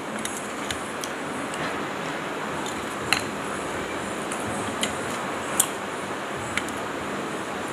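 A plastic spoon clicking lightly against a bowl now and then while eating, about half a dozen short clicks over a steady background hiss.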